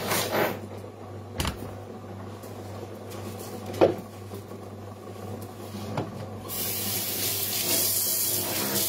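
Kitchen sink tap turned on about two-thirds of the way in, water running steadily into the sink, after a few sharp knocks of kitchen utensils or dishes, the loudest near the middle. A steady low hum lies underneath.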